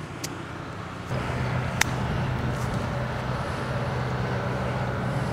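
Steady low hum of a running motor vehicle that starts about a second in and holds level, with a single sharp click shortly after.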